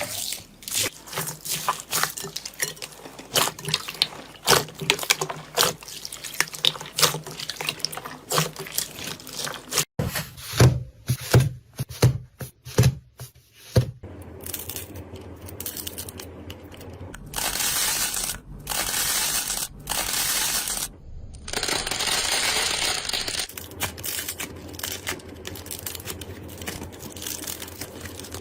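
Slime being played with by hand: dense sticky popping and crackling clicks as it is squished and pulled. After a sudden cut come a few dull low squelches, then stretches of steady hissing crackle as the slime is kneaded and stretched.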